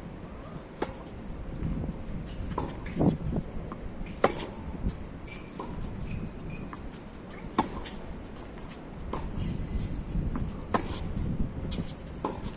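Tennis rally: sharp pops of the ball struck by rackets and bouncing on the court every second or two, with shuffling footsteps and wind rumbling on the microphone.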